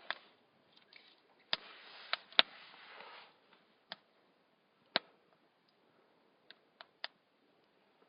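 Campfire wood crackling: sharp pops at irregular intervals, several close together in the first few seconds, with a soft hiss under them for a couple of seconds.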